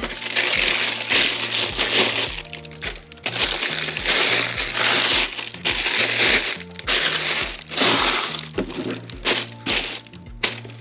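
Tissue paper crinkling and rustling in long swells as hands fold it over and smooth it down, over background music with a steady beat.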